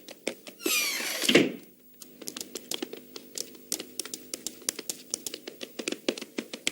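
Cartoon sound effects: a falling swoosh, then a run of quick, light, irregular taps over faint steady held tones.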